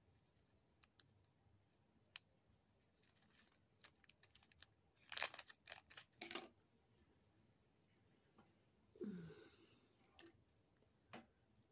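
Faint handling sounds: small clicks of metal tweezers and a thin plastic zip bag crinkling in a short run of crackles about five to six and a half seconds in.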